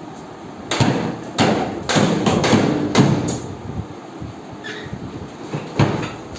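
A series of knocks and clunks, about six in quick succession and then one more near the end, as a refrigerator door is worked off its hinges. There is a brief faint squeak just before the last knock.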